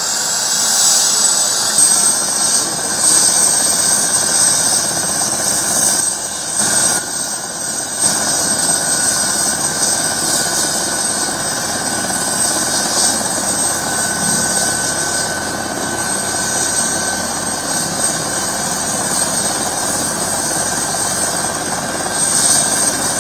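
Helicopter's turbine engine running on the ground: a steady high-pitched whine that rises slightly over the first couple of seconds, over a broad even rushing noise.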